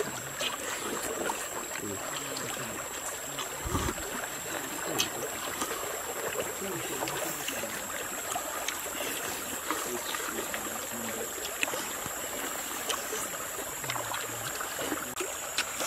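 Shallow forest stream running and trickling steadily, with scattered small clicks of spoons and eating, and a low thump about four seconds in.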